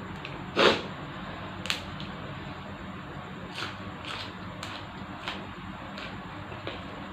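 A person eating glass-noodle soup: a short, loud slurp-like sound about half a second in, then soft clicks of utensils and chewing against a steady background hum.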